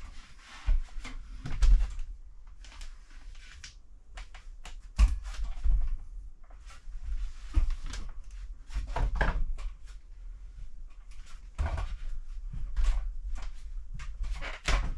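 Irregular knocks, bumps and scuffs as a desk frame is wrestled down a narrow set of loft stairs, with footsteps on the steps and rustling between the knocks.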